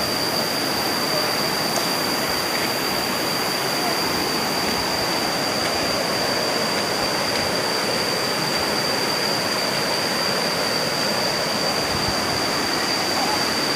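River rapids rushing over a flat rock shelf: a steady, unbroken noise of white water. A constant high-pitched tone runs above it.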